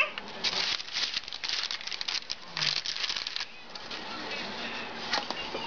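Paper crinkling and rustling in a run of quick bursts with light taps, as hands handle the paper wrapper of a refrigerated biscuit-dough tube. The sound dies down after about three and a half seconds.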